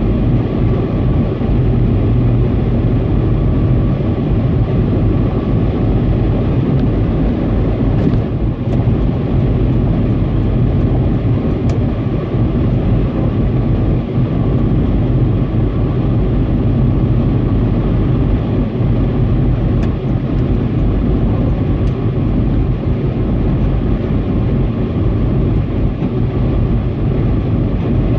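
Steady road noise inside a car cabin at expressway speed, a continuous low rumble with a faint steady whine above it.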